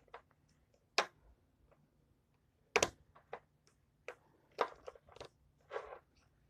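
Seasoning shakers handled while seasoning raw chicken: a run of sharp clicks and taps with short shaking rattles at irregular intervals, the loudest about a second in and just before the three-second mark.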